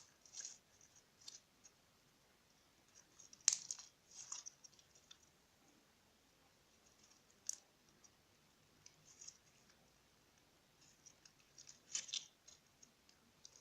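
Homemade glue slime being stretched and squeezed in the hands, making faint sticky clicks and crackles, with a few sharper snaps.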